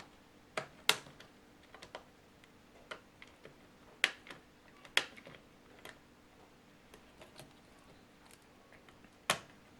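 Small cable connectors being popped out of a laptop's motherboard: sparse, sharp clicks and light taps at irregular intervals, about five louder clicks with fainter ticks between.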